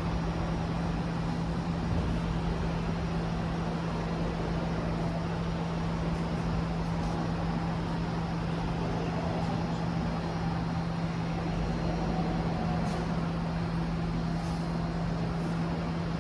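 HAAS UMC-750SS machining center's spindle running steadily at 10,000 RPM: an even hum with a single steady tone over a broad whirring hiss.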